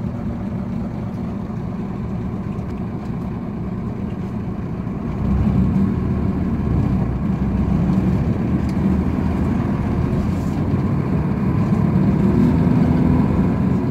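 Large diesel coach buses moving slowly, with a steady engine rumble that gets louder about five seconds in as a coach turns and comes up close.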